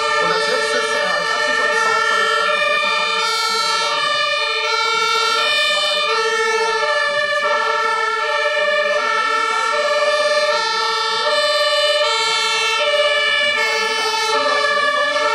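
German fire-engine two-tone siren (Martinshorn) sounding continuously, alternating between a high and a low note about every second or less, with more than one siren overlapping out of step.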